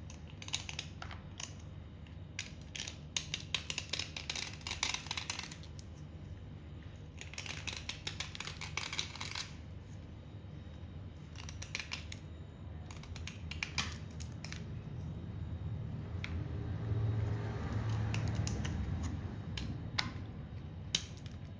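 A soaked, grooved white stick being scraped with a small tool: gritty crackling scrapes, two longer runs in the first half, then scattered sharp clicks as pieces crumble away. A low rumble of handling comes about three quarters in.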